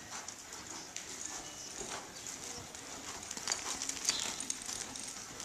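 Horse's hoofbeats on soft sand footing as it lopes past under a rider, a run of muffled irregular thuds that grow loudest as the horse passes close about four seconds in.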